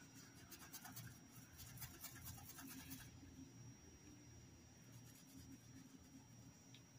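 Faint, scratchy strokes of a paintbrush laying fabric paint onto a cloth dish towel for about the first three seconds, then near silence.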